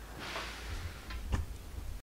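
Faint handling noise: a soft rustle, then two light clicks a little over a second in, over a low steady hum.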